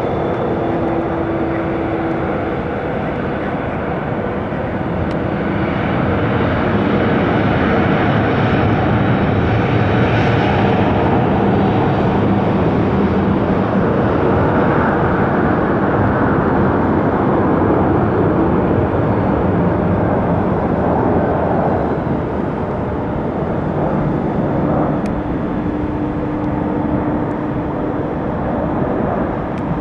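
Aircraft engines running: a loud, steady rush with a few steady humming tones in it, swelling in the middle and easing off near the end.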